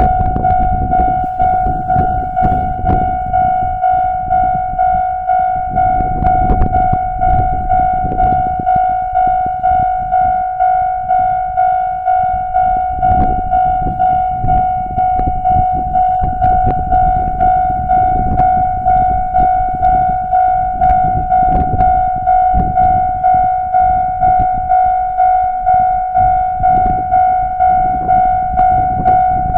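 Japanese level-crossing warning bell ringing steadily, a single-pitched electronic ding repeated in an even rhythm, each strike fading before the next, with a fluctuating low rumble beneath.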